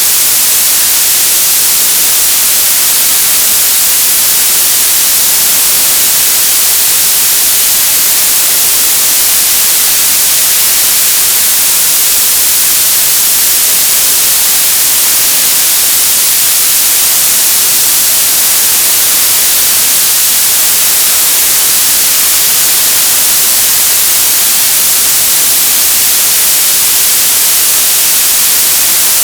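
Television static: a loud, steady hiss of white noise, brightest in the high end and unchanging throughout.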